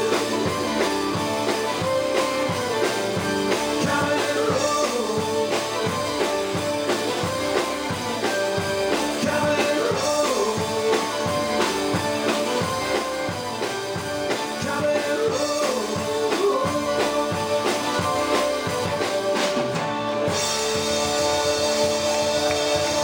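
Live country band playing through a PA system: a singer over a steady drum beat and guitar.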